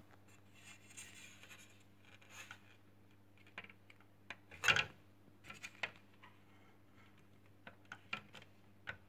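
Faint scratching, rubbing and light taps of fingers on the plastic housing of a Fiat Tempra/Tipo digital instrument cluster, the loudest rub about halfway through, over a steady low hum.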